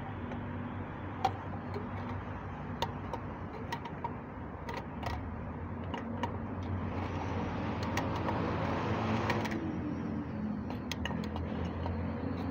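Sharp metal clicks and taps of a wrench working a threaded fitting on a water pump, scattered a few seconds apart. Under them runs a steady low mechanical hum, which swells for a couple of seconds past the middle.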